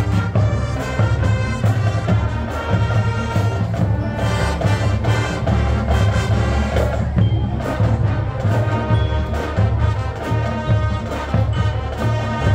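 High school marching band playing its field show: brass over a steady low bass and drums struck throughout.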